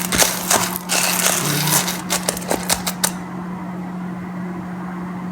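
Freshly roasted coffee beans rattling and clicking against their container as they are stirred or shaken, for about three seconds. After that only a steady low hum remains.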